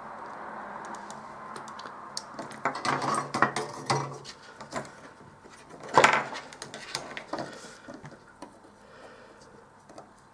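Light clicks and clatter of small tools and parts being handled on a workbench, starting a couple of seconds in, with one sharp knock about six seconds in as the loudest.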